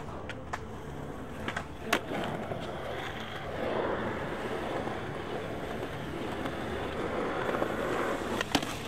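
Skateboard wheels rolling steadily over a concrete skatepark surface, loudest about four seconds in. Sharp clacks of the board come about two seconds in and again near the end.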